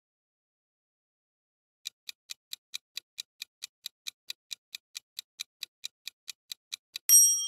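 Quiz countdown-timer sound effect: quick clock-like ticks, about four to five a second, starting about two seconds in. They end in a louder, bright ringing chime near the end that marks time up.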